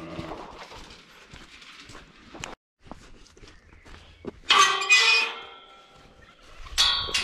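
Galvanised steel field gate being unlatched and swung, its tubular bars giving two loud metallic clangs that ring on, one about halfway through and one near the end, after a few light knocks.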